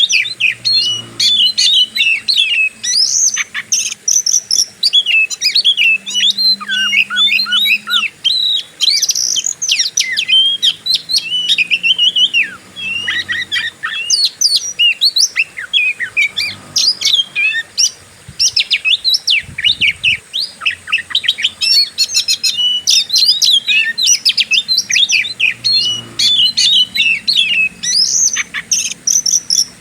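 Oriental magpie-robin (kacer) singing a fast, continuous 'fighting-style' song of varied whistles, rapid trills and sweeping notes, with hardly a pause.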